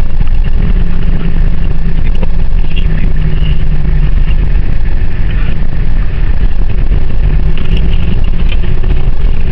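A car driving: loud, steady engine and road noise, with the engine tone holding level throughout.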